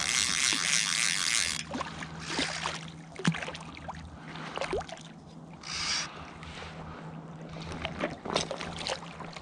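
Splashing water from a hooked rainbow trout being played to the net in a river, loudest in the first second and a half and again about six seconds in, with scattered clicks and knocks of handling gear over a steady low river rumble.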